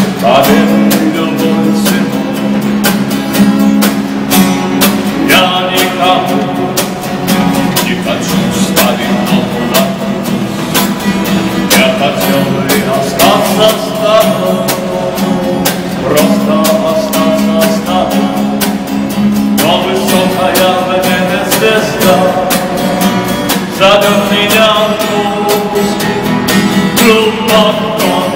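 A street musician strumming an acoustic guitar in a steady rhythm while a man sings a song over it.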